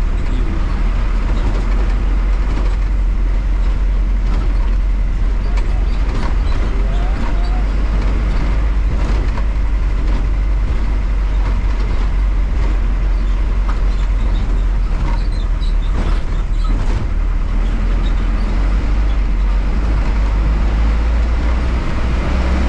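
Cabin noise of a moving bus: its Hyundai diesel engine's steady low rumble under road noise, with scattered small clicks and rattles from the body.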